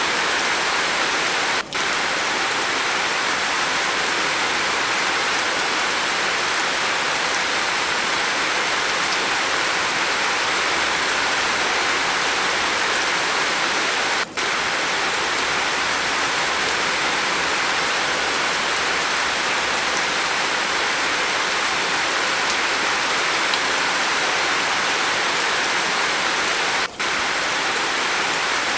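Steady, dense rain falling on a roof, an even hiss. It dips out for an instant three times, roughly every twelve seconds.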